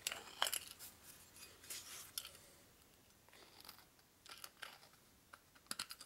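Hand deburring tool scraping around the edge of a bolt hole in an aluminium Harley-Davidson Evolution cylinder head, shaving off a burr in short, faint strokes that come every second or so.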